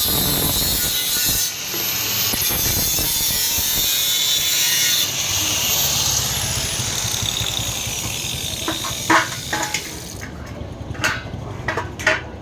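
A power tool cutting steadily, which stops about five seconds in and winds down with a falling whine. Several sharp knocks follow near the end.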